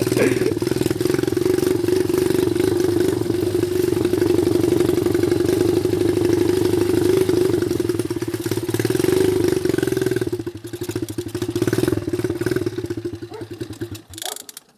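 Small mini cross dirt bike engine running at a steady pitch under way. About ten seconds in it turns uneven and weaker, then dies out just before the end: the engine stalling, which the rider puts down to holding the clutch in first gear.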